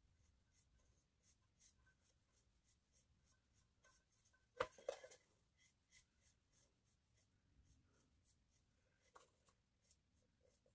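Faint, scratchy strokes of a paintbrush working thick textured paint onto a tin can, with one louder click about halfway through.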